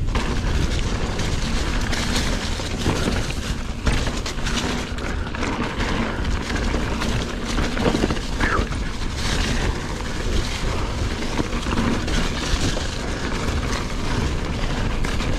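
Mountain bike coasting fast down a rough singletrack trail: wind rushing over the microphone with the tyres and frame rattling, and sharp knocks as the wheels hit roots and rocks.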